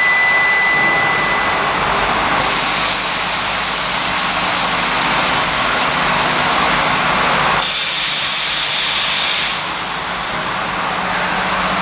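Curtain wall end milling machine running and milling an aluminium profile end: loud steady machine noise with hiss. A high whine fades out in the first second or two, and a brighter hissing cut runs from about two and a half to eight seconds in.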